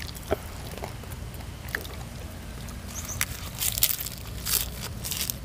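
Fresh leafy greens crunched between the teeth, in a cluster of short crisp bursts from about three and a half seconds in. Before that come a few light clicks and rustles as the leaves are handled.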